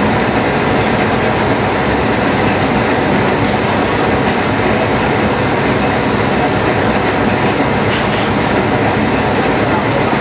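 GDS-100 spring coiling machine running, feeding heavy wire through its rollers and coiling it into a rolling-door spring: steady mechanical noise at an even level.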